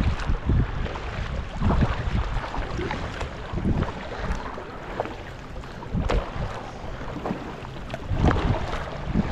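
Kayak paddle strokes in the water, recurring about every two seconds, with wind noise on the microphone.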